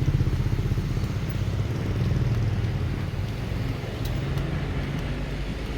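Steady low rumble of street traffic, with no distinct passing vehicle standing out.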